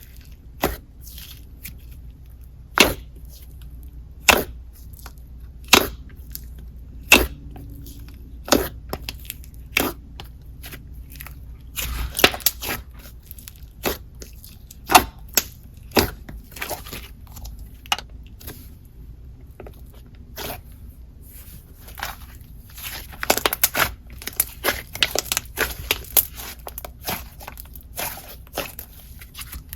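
Slime being squeezed and poked by hand, giving sharp sticky clicks and pops about every second or two. Denser crackly runs come about twelve seconds in and again near the end.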